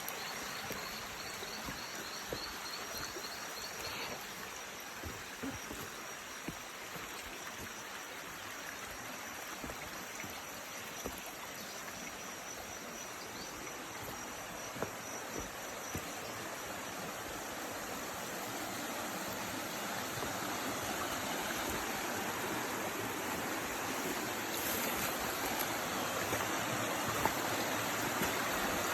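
Floodwater rushing steadily, getting a little louder toward the end. A faint high trill sounds over it in the first few seconds.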